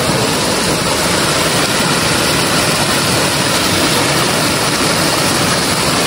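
Waterfall cascading over rocks: a loud, steady, even rush of water.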